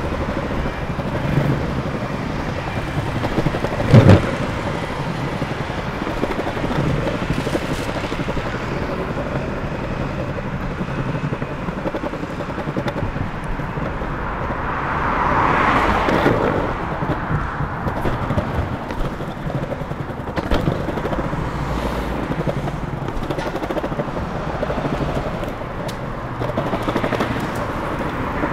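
Longboard wheels rolling over pavement paving slabs, with a constant rumble and rapid clicks at the slab joints, and street traffic behind. A single sharp knock about four seconds in, and a louder swell of noise a little past the middle.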